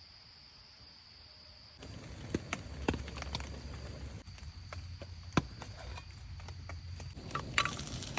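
A steady high insect drone at first. After about two seconds a portable gas stove burner starts running with a low steady rush, with a few sharp metal clinks of cookware being handled. Near the end a brighter hiss rises as food starts sizzling in a grill pan.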